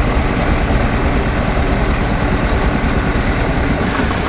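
UAZ engine idling roughly and unevenly, which the driver takes for misfiring on a cylinder with a knock after the vehicle drove straight into water.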